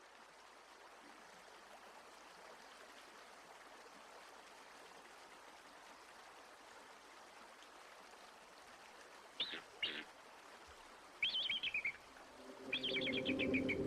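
Faint steady hiss, then high bird calls from about nine seconds in: two short chirps, then two rapid trills falling slightly in pitch. Near the end, a few low, steady held tones come in under the calls.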